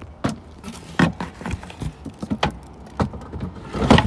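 A Rover push mower rattling and knocking as it is wheeled and handled on pavement: a string of irregular clatters and bumps, the loudest near the end.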